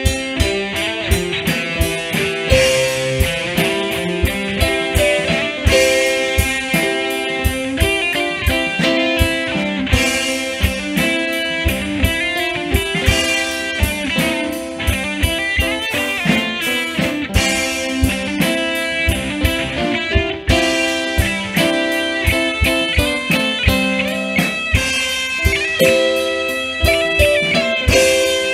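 Instrumental music: melodic lines and held chords over a steady drum beat.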